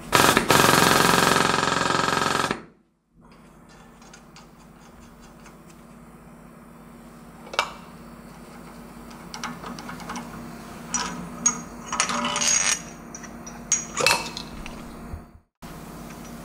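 A loud clattering burst lasting a couple of seconds at the start, then scattered metallic clinks and clicks, more of them near the end, as the steel parts of a wheel-hub puller and its hydraulic cylinder are handled and fitted onto a car's wheel hub, over a faint steady hum.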